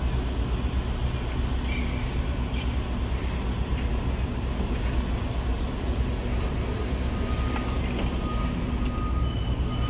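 Sydney Trains Waratah (A set) electric train running along the platform: a steady low rumble of wheels on rail. A thin steady whine joins in about seven seconds in.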